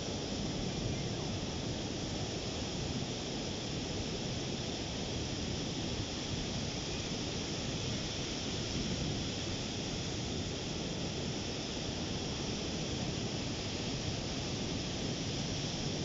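Ocean surf breaking and washing up a sandy beach: a steady wash of wave noise.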